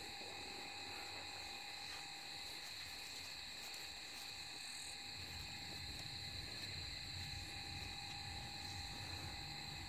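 Night insect chorus: a faint, steady high-pitched drone at several pitches at once, with a low rustle of handling underneath.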